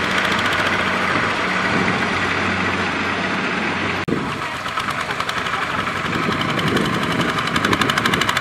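Kubota two-wheel power tiller's single-cylinder diesel engine running under load, pulling a trailer heavy with rice sacks; a regular firing beat grows more distinct near the end. The sound cuts out for an instant about four seconds in.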